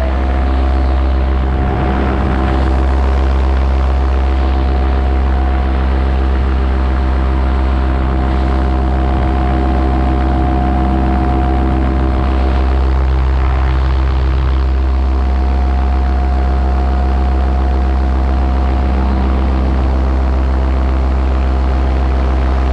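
Paramotor engine and propeller running steadily in flight, an even drone that holds one pitch throughout.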